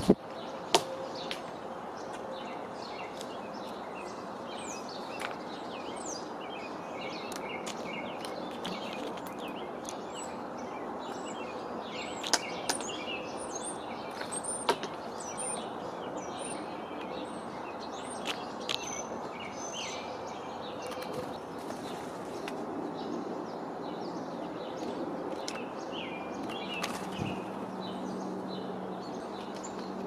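Small wild birds chirping and calling over a steady outdoor background hiss, with a few sharp taps scattered through, and a low steady hum coming in near the end.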